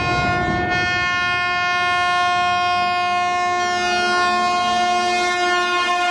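Air horn of an Indian Railways WAP-5 electric locomotive sounding one long, steady blast as the train approaches at speed. Its pitch starts to drop at the very end as the locomotive passes.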